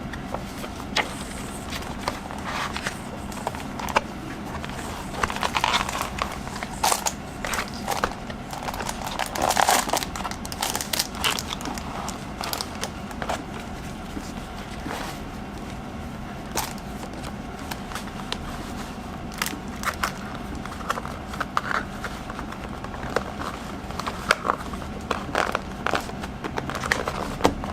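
Rustling, crinkling and small taps of a paperback planner being handled and worked into a tight-fitting book cover, in irregular bursts.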